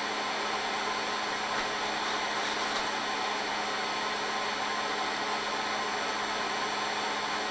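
Small quadcopter drone hovering, its motors and propellers running with a steady whirring hum.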